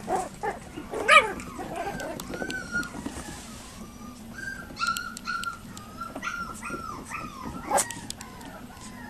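Seven-week-old Yorkiepoo puppies whining and yipping: a string of short, high whines, with a louder yelp about a second in.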